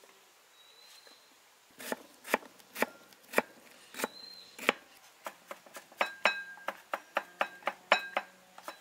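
Kitchen knife slicing tomatoes and knocking on a wooden chopping board: after a quiet start, single strokes about twice a second, then quicker slicing at about four strokes a second, some with a short ring.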